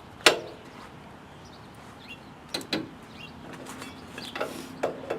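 One sharp knock, then a few lighter clicks and knocks of hand work on the snow plow's parts.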